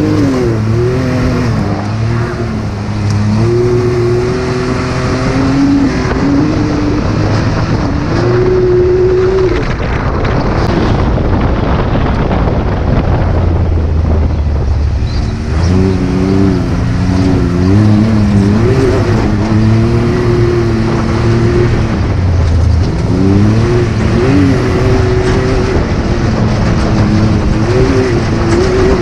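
Can-Am Maverick X3 Turbo side-by-side's turbocharged three-cylinder engine revving up and easing off again and again under hard driving. Near the middle the throttle drops off for a few seconds before the revving resumes.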